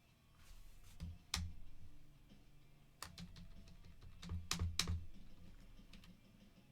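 Handling noise at a desk: a handful of separate sharp clicks with dull knocks under them, the loudest two close together about four and a half seconds in.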